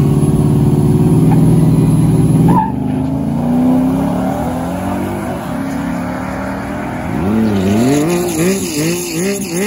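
Two SUVs, a Jeep Grand Cherokee and a BMW, held at raised revs on the drag-strip start line, then launching about two and a half seconds in and pulling away down the track, the engine note dropping and gliding as they go. Near the end, an engine close by revs up and down repeatedly.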